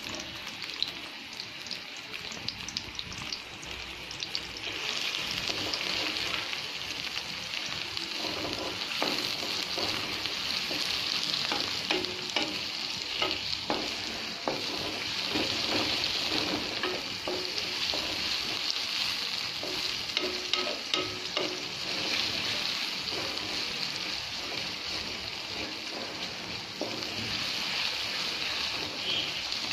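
Sliced onions sizzling in hot oil in a metal karahi, with a wooden spatula knocking and scraping against the pan as they are stirred. The sizzle grows louder about five seconds in.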